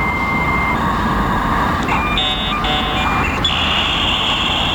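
Dial-up modem handshake played back through a speaker: a steady tone, then shifting electronic tones near the middle, then a high, steady tone. Low street traffic noise runs underneath.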